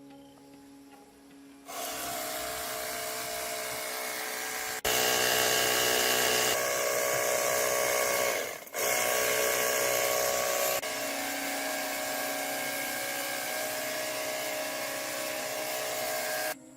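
A handheld power tool running, starting about two seconds in. It gets louder with a brief stop and restart midway, eases off slightly, then cuts off just before the end.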